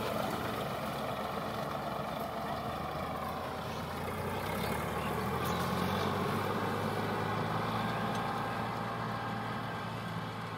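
Sonalika DI 745 tractor's diesel engine running steadily under load as it pulls a tine cultivator through dry soil, growing slightly fainter toward the end as it moves away.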